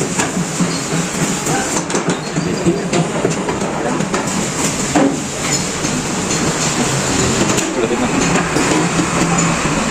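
Electric drill machine running steadily under power, with a continuous motor hum and a rattling clatter.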